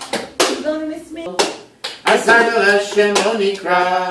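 Women laughing, with several sharp slaps of hands and plastic cups. Near the end a voice holds a steady sung note.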